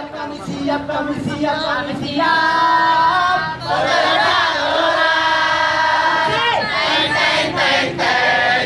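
A group of people singing and chanting a cheer together in unison, loud and partly shouted, with long held notes through the middle.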